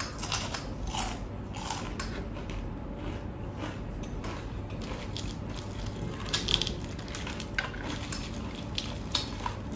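A person chewing crunchy food close to the microphone, with irregular crisp crunches.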